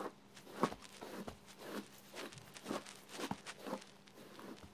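A hairbrush pulled repeatedly through thick, curly hair close to the microphone, in short strokes about two a second.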